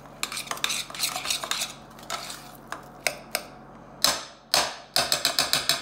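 Metal spoon scraping and clinking against a stainless steel saucepan while stirring mashed potatoes, with a quick run of sharp, loud clinks near the end.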